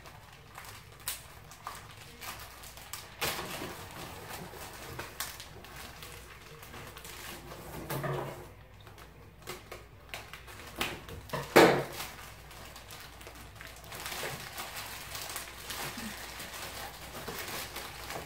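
Plastic wrapping crinkling and rustling as it is cut with scissors and pulled off a flat packaged print, with scattered clicks. A louder thump comes about two-thirds of the way through.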